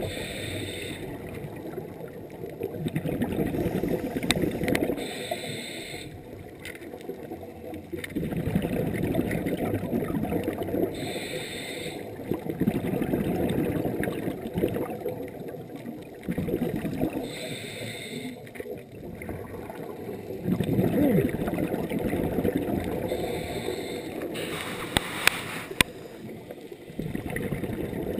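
Scuba diver breathing through a regulator underwater: a short hiss of inhalation about every six seconds, each followed by a low bubbling rumble of exhaled bubbles. Two sharp clicks a little before the end.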